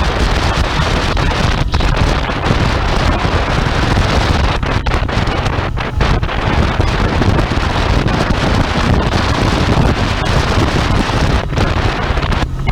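Heavy wind buffeting the microphone over the steady running of a Royal Enfield Interceptor 650's parallel-twin engine at riding speed. The wind rush dips briefly a few times.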